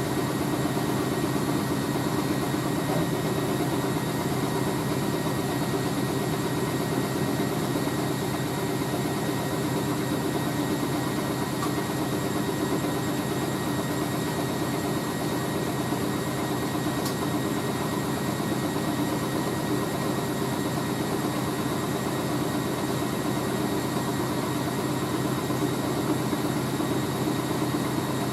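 Hoover A3060 Electronic 1100 front-loading washing machine spinning a towel load on its final spin: motor and drum running at speed with a steady whine and rushing hum that hold even throughout.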